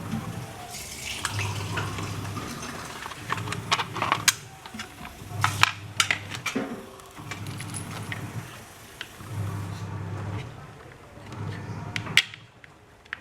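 Metal parts and bolts of a stainless-steel wheeled base clinking and clattering as they are handled and fitted together, with irregular sharp clicks, several loud ones between about four and six seconds in.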